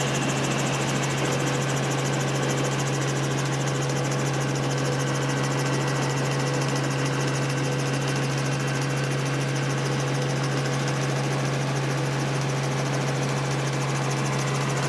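Helicopter engine and rotors running steadily: a loud, unchanging low hum with a hiss of noise above it.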